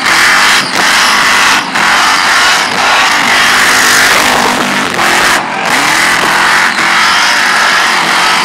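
Supercharged Holden VL Commodore burnout car doing a burnout: the blown engine is held at high revs with the rear tyres spinning in smoke, loud and steady, with brief drops in the noise every second or so.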